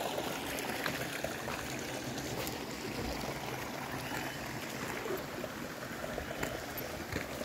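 Steady trickling and running water in a half-drained concrete fish pond, with a few faint ticks.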